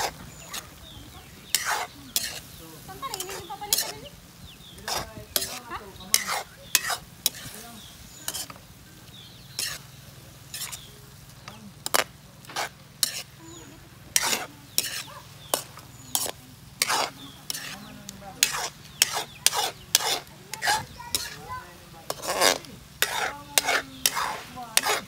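Spatula scraping and knocking against a metal wok in irregular strokes, about one or two a second, while green beans and red peppers are stir-fried, over a steady sizzle of the frying food.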